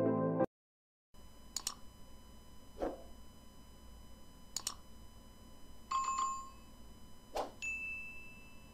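Several sharp cursor clicks and a short chime from a subscribe-and-notification-bell animation, over a low steady hum. A high ringing tone starts near the end.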